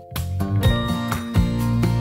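Background music with guitar and a regular beat, starting right at the beginning.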